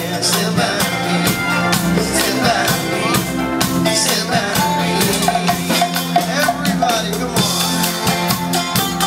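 A live street band playing upbeat music with drums keeping a steady beat.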